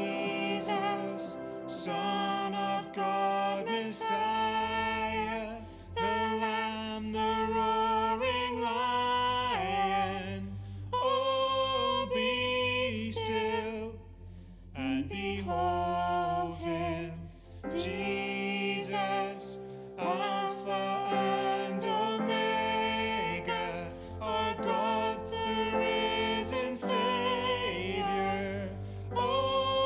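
A worship song being sung with instrumental accompaniment, a deep bass part coming in about four seconds in and dropping out briefly around the middle.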